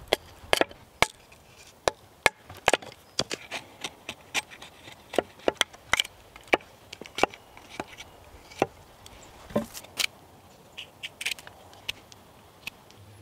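Small hatchet chopping into a freshly cut tree branch: a long series of sharp wooden knocks, roughly two a second, growing sparser near the end.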